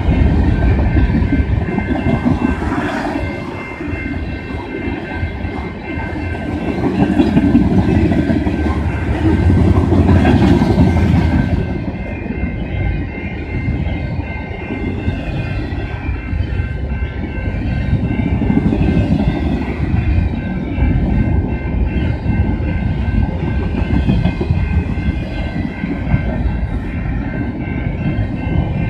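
Freight train cars rolling past at close range: a steady low rumble with clatter from the wheels on the rail joints and faint high steady tones above it, swelling louder from about seven to eleven seconds in.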